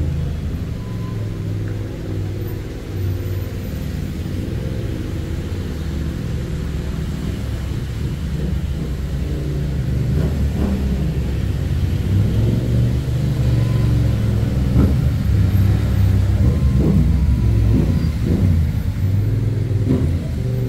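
A motor vehicle's engine running with road noise, a steady low rumble that grows louder about halfway through as it picks up speed.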